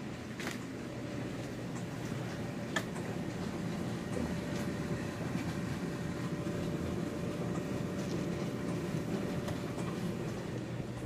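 Household laundry machine running mid-cycle, a steady low rumble with a faint even hum, and one sharp click about three seconds in.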